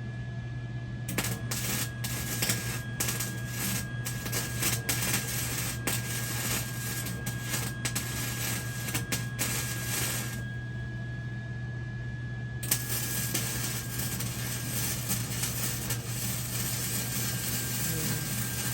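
Electric arc welder laying tack welds on a steel smoker: two runs of arc crackle and sizzle, the first about nine seconds long with many sharp pops, the second about six seconds long and steadier after a short pause. A steady low hum sounds throughout.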